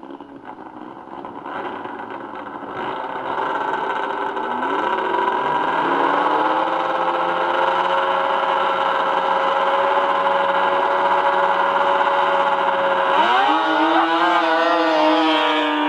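Snowmobile engine running at the drag-strip start line, growing louder with a few short rev blips, then holding a steady high drone. About 13 seconds in the pitch climbs sharply as the sled launches down the grass track under full throttle.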